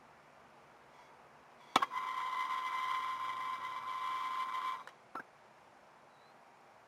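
Handheld torch lit with a sharp click, its flame hissing with a steady whistle for about three seconds as it reheats the copper splice, then shut off suddenly, with a brief puff just after.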